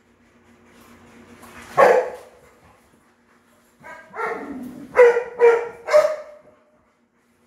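Dog barking: one sharp bark about two seconds in, then a longer, lower call followed by three quick barks about half a second apart.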